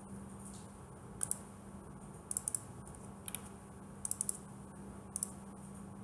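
Light, sharp computer clicks: single clicks and quick runs of two to four, spaced about a second apart, over a faint steady hum.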